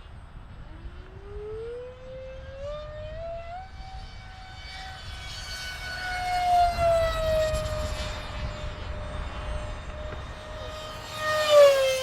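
RC jet's electric ducted fans whining, rising in pitch as the throttle comes up over the first few seconds. The jet then makes two fast passes, each louder with the pitch dropping as it goes by, the second and loudest near the end.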